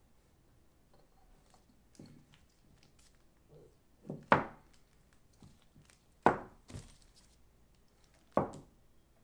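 Small glass jars knocking on and being set down on a newspaper-covered table: three sharp knocks about two seconds apart, with a few softer taps between.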